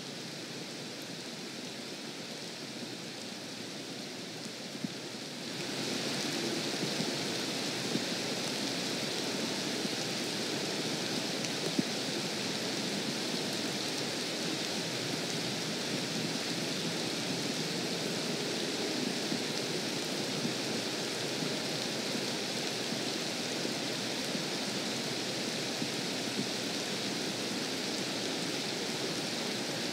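Rain falling steadily on a lake's surface, growing heavier and louder about five and a half seconds in.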